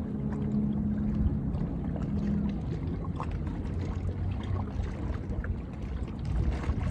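Small waves lapping and splashing against the rocks at the water's edge, with a low steady hum under it for the first couple of seconds.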